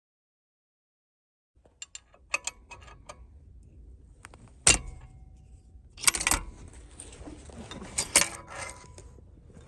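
Silence at first, then small metal objects clinking and clattering: a few light clicks, a sharp ringing clink, then busier runs of clatter.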